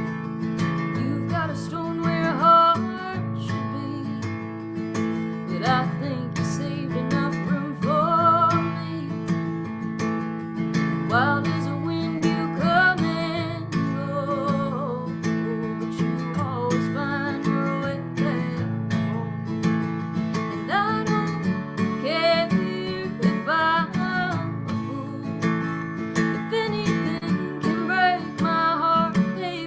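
A woman singing to her own strummed acoustic guitar. The guitar plays alone briefly before the voice comes in, about a second and a half in.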